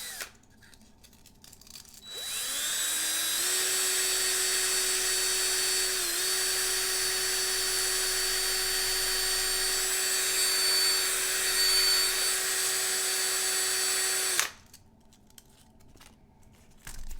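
Power drill spinning up, running steadily and then stopping, with a small die-cast toy-car axle chucked in it. A hiss of 220-grit sandpaper is pulled down against the spinning axle to straighten it.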